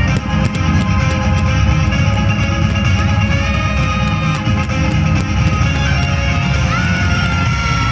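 Music with guitar, loud and steady.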